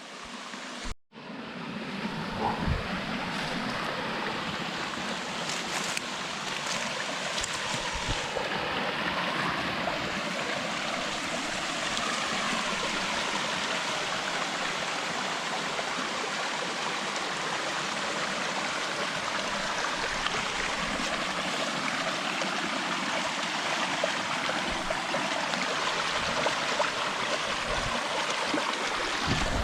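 Steady rush of flowing water from a stream or waterfall, with a brief dropout about a second in.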